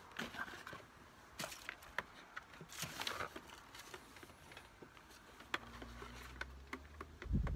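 Faint handling noises: scattered small clicks, taps and rustles as a plastic controller box, a bag of screws and a rubber seal cord are handled in a cardboard box. A low hum comes in about five and a half seconds in, and a low thump sounds near the end.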